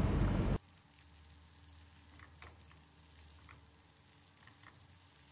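Sliced onions frying in melted butter in a nonstick pan, sizzling while they are stirred with a silicone spatula. The sizzle cuts off sharply about half a second in, leaving a faint background with a few soft pops.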